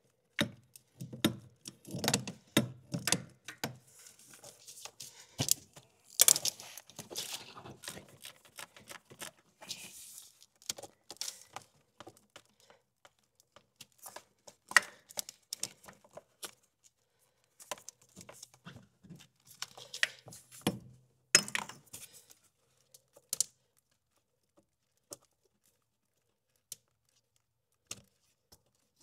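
Metal hand tools clinking, clicking and rattling as a socket wrench works on the starter's mounting bolts. The noise is busy at first, then thins to a few isolated clicks near the end.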